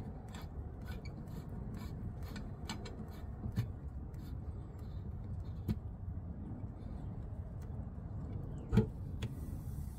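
Hands handling garden hose fittings at an outdoor faucet: small sharp metallic clicks and clinks, several in the first few seconds, then a louder clack about nine seconds in, over a low steady background noise.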